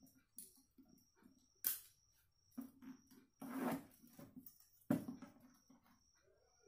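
Hand-tool handling on a cardboard sheet: a steel ruler and try square knocking and sliding on the cardboard with a couple of sharp clicks, and a pencil scratching a line across the cardboard about halfway through.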